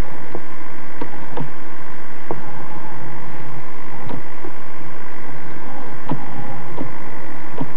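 Steady hiss and hum of an old VHS recording, with scattered short clicks and knocks about once a second.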